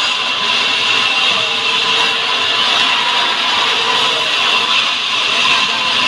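Band sawmill running with its blade sawing lengthwise through a log of salam, a hardwood. It makes a steady, unbroken whine over a hiss.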